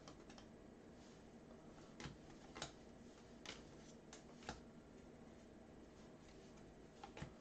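Near silence with a few faint, scattered clicks and taps of trading cards being handled and flipped through by hand.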